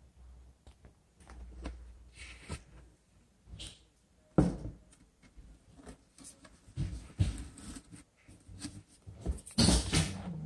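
Irregular handling noises: scattered clicks and knocks, a sharp knock about four seconds in, a few thumps a little later, and a loud rustle near the end.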